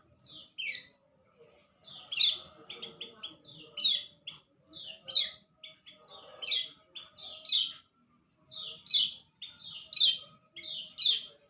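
A bird calling over and over with short, high notes that slide downward in pitch, sometimes several in quick succession.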